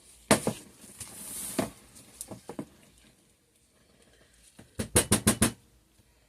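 Soap-batter container being scraped and knocked while its sides are wiped down: a sharp knock, a short scraping swish, a few light clicks, then a quick run of about six taps near the end.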